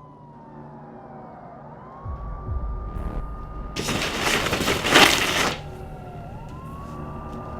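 Police siren wailing slowly, its pitch falling and rising back up twice. A loud burst of rushing noise over a low rumble comes in the middle, from about four seconds in to five and a half.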